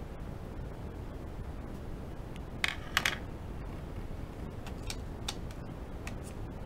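Drawing tools handled at a desk: a quick cluster of sharp clicks and taps about two and a half seconds in, as the pencil is put down, then a few lighter clicks a couple of seconds later, over a steady low rumble.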